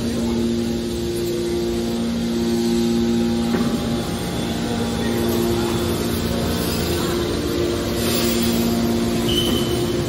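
Hydraulic scrap-metal baler's electric motors and hydraulic pumps running: a steady mechanical drone with two humming tones that drop out and come back several times.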